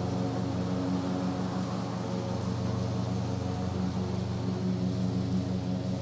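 Cub Cadet riding mower's Kohler KT725 V-twin engine running steadily.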